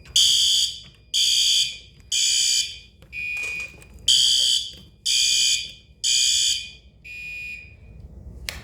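Fire alarm horns sounding in loud, high-pitched blasts about once a second, a few of them weaker than the rest. They stop about eight seconds in, and a single sharp click follows.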